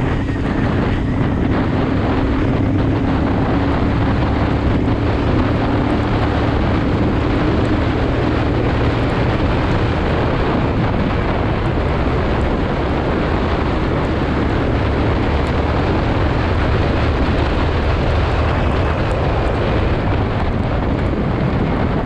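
Motorcycle riding at speed in fifth and sixth gear: a steady engine drone under heavy wind rush on the microphone.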